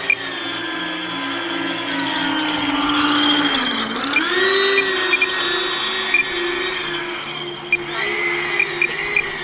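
Electric ducted fan of an RC airplane running under throttle: a steady whine that dips in pitch about four seconds in and climbs back up, with a few short clicks.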